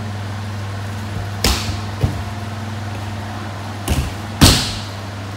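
Judoka being thrown and landing on tatami mats: several thuds, about a second and a half in, at about two seconds, then two close together around four seconds, the last one the loudest.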